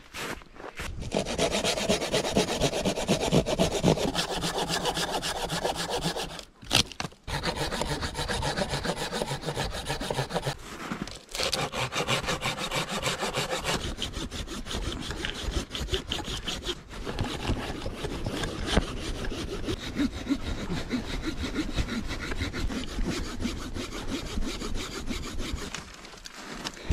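Hand saw cutting through the trunk of a small tree with rapid back-and-forth strokes, the teeth rasping through the wood, with a few brief pauses between runs of strokes.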